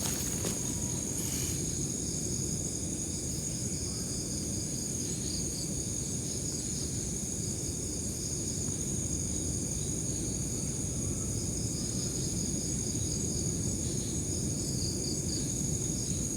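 Insects calling: a steady high-pitched drone, with a pulsing chirping trill that comes and goes twice. Underneath is a steady low rumbling noise.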